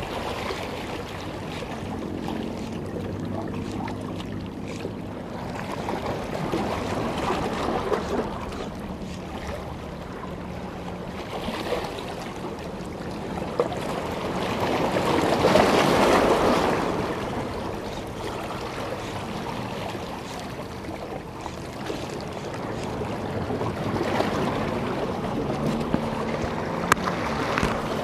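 Sea water washing against the breakwater rocks, swelling to its loudest in the middle and then easing off, with wind on the microphone.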